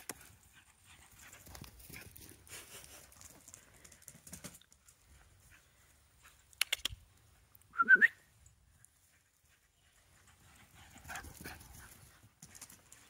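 Galgo Español's paws drumming on the grass lawn as she gallops past, a soft uneven patter that comes and goes. About eight seconds in there is a short, loud, rising call, just after a sharp click.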